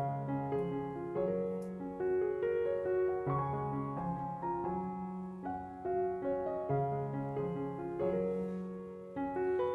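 Background piano music: a gentle tune of chords and held notes changing every second or so.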